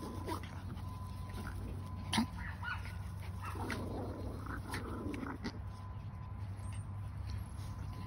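Yorkshire terriers vocalizing as they wrestle in play, with short high whines and yips. A sharp click about two seconds in.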